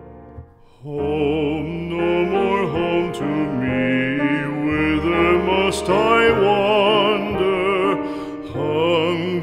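Music: a held piano chord fading out, then about a second in a solo voice starts singing a slow song with strong vibrato over soft accompaniment.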